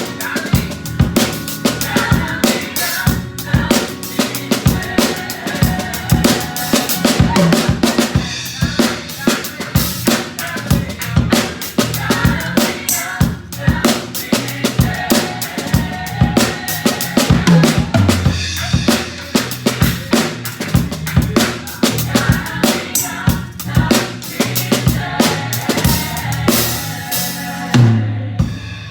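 Drum kit played in a busy groove of kick, snare and cymbal strokes over accompanying music with a strong bass line. The song closes about a second before the end with a final accented hit that rings out and fades.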